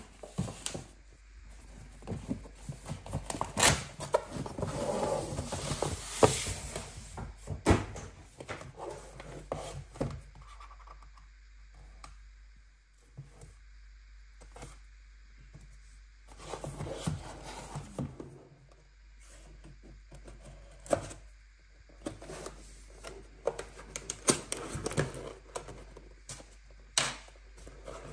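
A paper gift bag rustling and crinkling as it is handled, then a white cardboard product box handled and opened by hand. Irregular rustles and scrapes with scattered light taps and thunks, busiest at the start and again in the second half.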